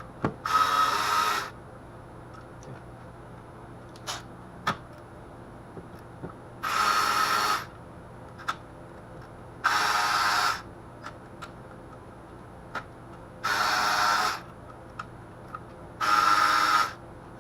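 Power driver spinning bolts out of the engine's front cover, in five short runs of about a second each with a steady whine, with small clicks of the socket and bolts between runs.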